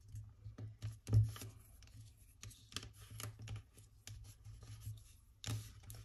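Fingers pressing and rubbing a glued paper fir-tree cutout down onto a sheet of paper: soft paper rustling and scratching with light taps, and a dull thump about a second in.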